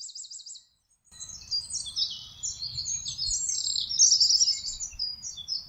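Birdsong: many quick high chirps and short trills. They break off for about half a second near the start, then resume over a faint low rumble and are loudest about four seconds in.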